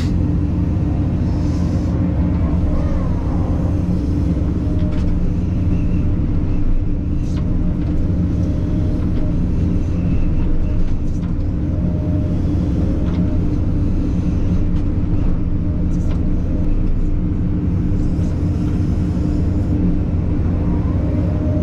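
Takeuchi TB2150 tracked excavator's diesel engine running steadily under working load, with a few faint knocks through it.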